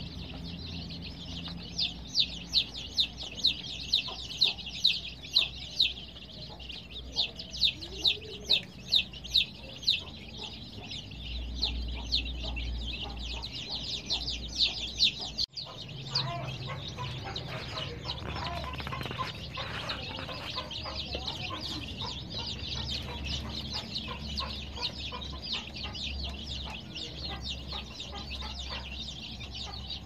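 Baby chicks peeping, many shrill high peeps overlapping. The peeps are loudest and come in a fairly regular run in the first half; about halfway through the sound changes to a softer, denser chorus of peeps.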